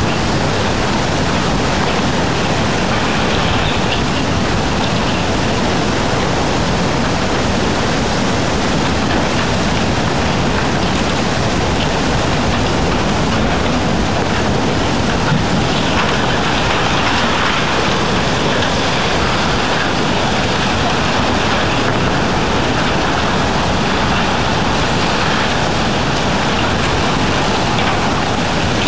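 Tsunami floodwater rushing and churning past in a steady, loud rush.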